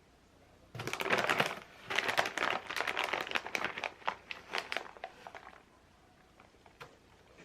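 Crinkling and rustling of something crinkly being handled, in dense crackly bursts for about five seconds, followed by a single faint click near the end.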